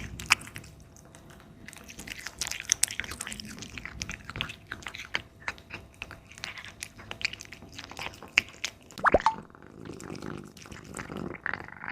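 A cat chewing meat: wet, irregular clicking and crunching of its mouth on the food, with one short falling squeak about nine seconds in.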